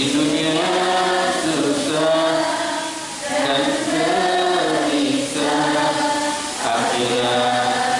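A man's voice chanting Arabic verse in the melodic Qur'anic recitation style (lagu Qur'ani). Long held notes rise and fall, with short breaks for breath a few times.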